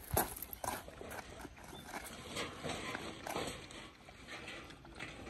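Puppies lapping water from a plastic tray, a run of quick, irregular clicks and slurps from several tongues at once.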